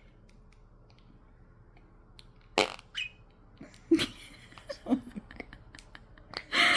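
Noise putty squeezed in its pot, giving four short fart-like squelches; the last, near the end, is the loudest.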